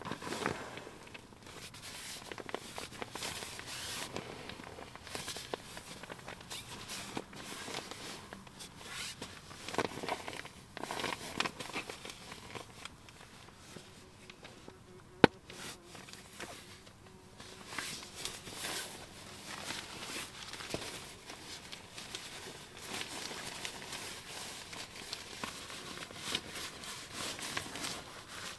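Nylon fabric rustling and crinkling as a sleeping pad is rolled up inside a tent and stuffed into its bag, in irregular handling bursts, with one sharp click about halfway through.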